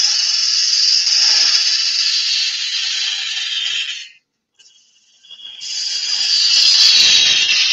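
Wood-turning gouge cutting a spinning wooden blank on a lathe: a steady hissing cut for about four seconds, a pause of about a second and a half as the tool comes off the wood, then a second cut. The turner says the gouge is going blunt on one side.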